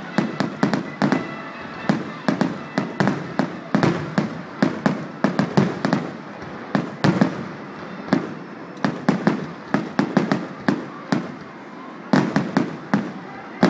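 Aerial firework shells bursting in rapid succession: a continuous string of sharp bangs, several a second, packed more densely near the end.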